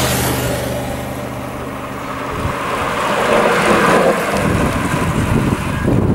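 Road and wind noise heard from a moving car: tyre and engine rumble with wind buffeting the microphone, getting louder about three to four seconds in.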